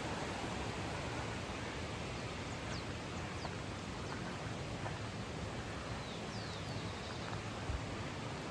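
Steady rushing of water from a mountain stream or waterfall. A few faint, short, high chirps from a bird come through it about three seconds in and again near the end.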